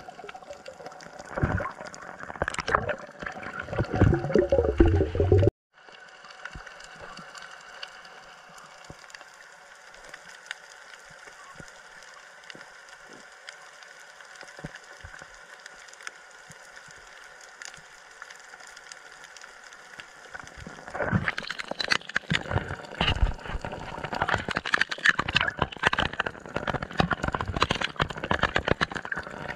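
Sea water gurgling and splashing close up. It drops suddenly about five seconds in to a quieter steady hiss, and from about 21 seconds on dense crackling splashes and bubbling return.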